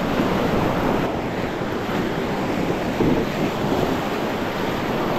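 Steady rushing of whitewater as a drift raft runs a river rapid, with wind rumbling on the microphone.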